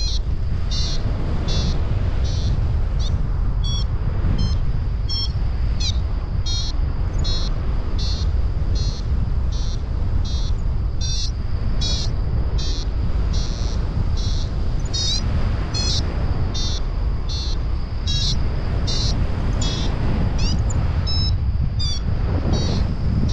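Paragliding variometer beeping in short high-pitched pulses, about two a second, the sign of the glider climbing in lift. Under it, steady wind rushes over the microphone in flight.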